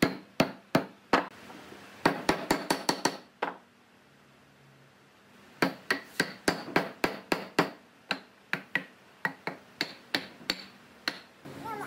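Hammer blows driving glued round-log joints of a furniture frame home through a wooden block: sharp knocks, a quick run of them, a pause of about two seconds, then steady knocking at about three or four a second.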